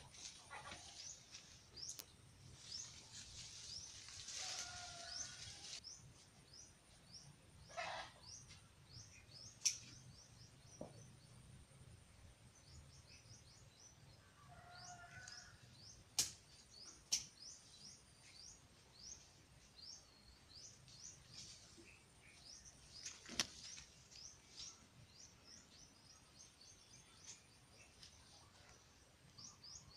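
Small birds chirping faintly, a steady stream of many short high chirps, with a few sharp clicks standing out over them.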